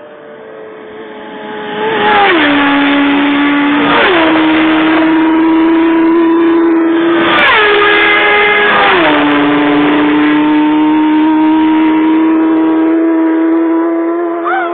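Racing motorcycles passing flat out, about four in quick succession, each engine's note dropping sharply in pitch as it goes by, then holding a steady high note as it pulls away. Loud throughout once the first bike arrives.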